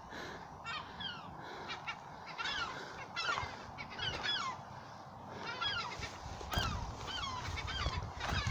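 Gulls calling over and over, many short calls that bend up and down in pitch and overlap one another, several a second.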